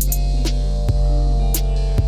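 Background music with a steady beat: sustained instrumental tones over percussion strikes.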